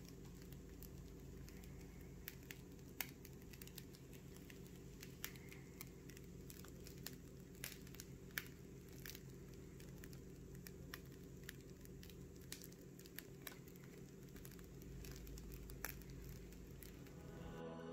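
Freshly baked crusty loaf crackling faintly as its crust cools and cracks: an irregular scatter of small ticks and pops that sounds like a wood fire. A steady low hum lies underneath.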